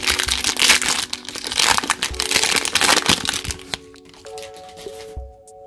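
The foil wrapper of a Pokémon Shining Fates booster pack crinkles loudly as it is torn open and pulled apart. The crinkling stops about four seconds in.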